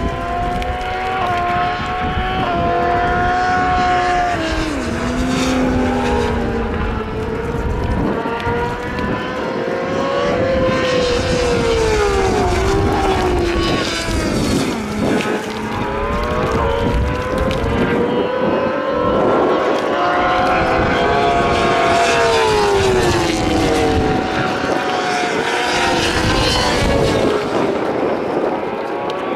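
Several racing motorcycles pass one after another at full throttle. Their engines rise in pitch through the gears, and each note drops as a bike goes by.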